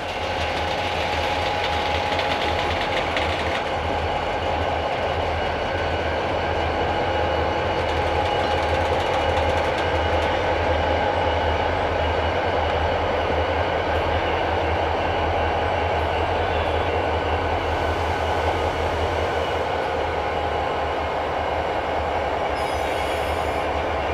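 Two Illinois Central diesel-electric locomotives running at close range, with a constant low engine drone and a steady higher whine over it.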